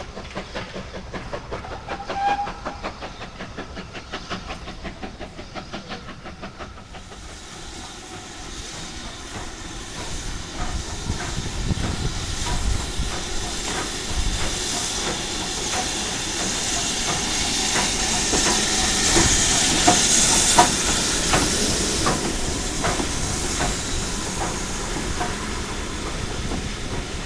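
Steam tank locomotive coming into the station with a rake of coaches, its steam hissing more and more loudly as it nears and loudest as the engine passes, about two-thirds of the way through. Wheels click over the rail joints as the coaches roll by.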